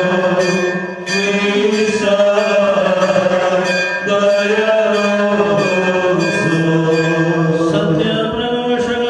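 Malankara funeral chant sung by men's voices, a slow melodic line over a steady low drone.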